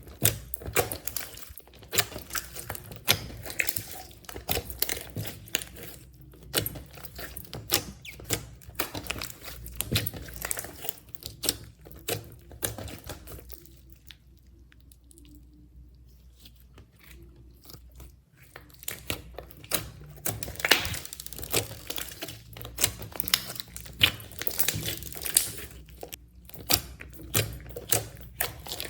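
Slime being kneaded, stretched and pressed by hand, with dense little pops, crackles and wet clicks as air pockets burst. It goes quieter for a few seconds about halfway through, then picks up again.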